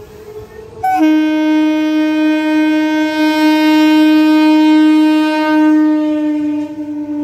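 Indian Railways EMU local train's horn sounding one long blast, starting about a second in and held for about six seconds. It dips slightly in pitch near the end as the train passes.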